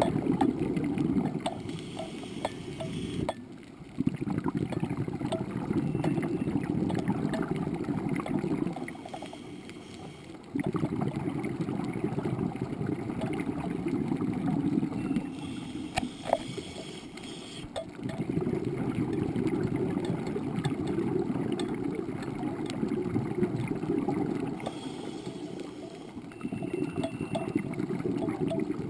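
Scuba diver breathing through a regulator, heard underwater: a long low rush of exhaled bubbles every seven or eight seconds, with a short hiss of inhaling in the gaps between. Scattered faint clicks.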